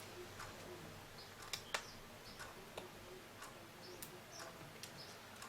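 Faint scattered clicks and ticks of a small screwdriver and screws being worked on a laptop's plastic screen lid, with two sharper clicks in quick succession about one and a half seconds in.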